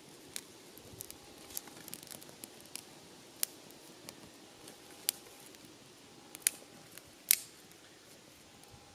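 Small kindling fire crackling as dry grass tinder and thin twigs catch, with irregular sharp pops and snaps. The loudest snap comes about seven seconds in.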